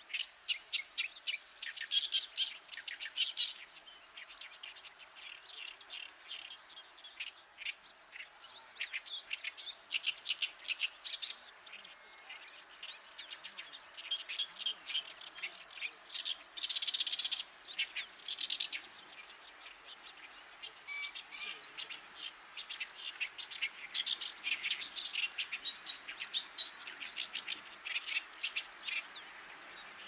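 Oriental reed warbler singing: a harsh, chattering song of rapid repeated grating notes, given in bouts of a few seconds with short pauses between them.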